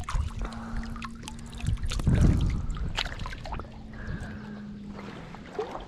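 Shallow river water splashing and trickling as a hand moves in it at the edge, with a louder splash about two seconds in.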